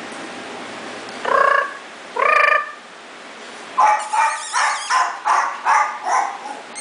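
Chihuahuas yapping high and sharp while playing: two longer yaps, then a quick run of about seven short yaps at roughly three a second.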